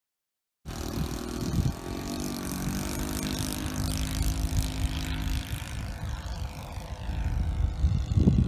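OS .62 four-stroke glow engine of a Top Flite Elder 40 RC trainer plane running in flight, its pitch sliding down as the plane passes. A low rumble comes near the end.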